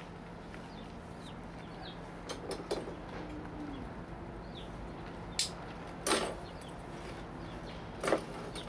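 A few sharp clicks and knocks from hands handling a potted bonsai and its branches, the loudest two near the end, over a steady low hum and faint bird chirps.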